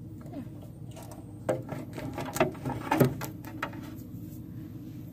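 A plastic toy horse trailer handled close to the microphone: a few light clicks and knocks, the sharpest about one and a half, two and a half and three seconds in, over a low steady hum.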